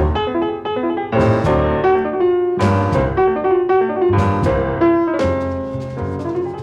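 Intro theme music led by piano chords, with drums and cymbal hits on the strong beats.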